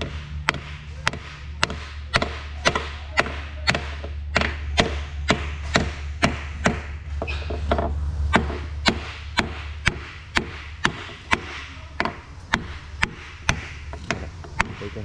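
Hammer blows on a wooden block held against a marine diesel engine block, struck about twice a second in an even rhythm, tapping a cylinder liner fitted with new O-rings down into its bore.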